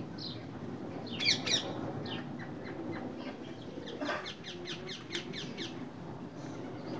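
Rose-ringed parakeets chattering: a loud flurry of short chirps about a second in, then a quick run of short, evenly spaced calls, about seven a second, through the middle.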